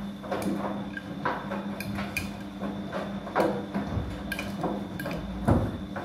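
Siemens front-loading washing machine running a wash: a steady motor hum with wet laundry tumbling and sloshing in the turning drum, a swish or knock about once or twice a second, the loudest a thump near the end.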